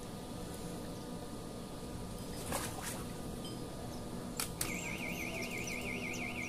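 Open-air pondside ambience with a few short clicks and knocks. About two-thirds of the way through, a high call starts that warbles quickly and evenly up and down.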